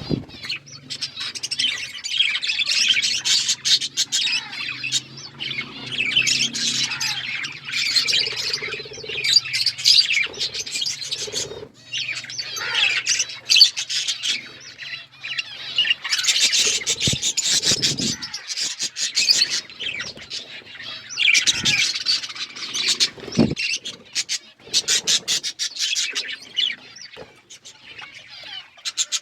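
Budgerigars chirping and chattering without pause, a busy mix of warbling and sharp squawky calls with clicks here and there.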